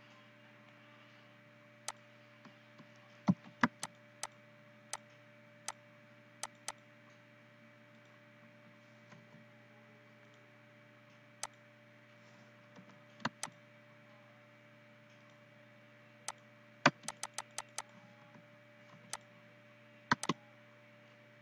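Computer mouse buttons clicking: single sharp clicks at uneven intervals, with a quick run of about six clicks past the middle, over a faint steady electrical hum.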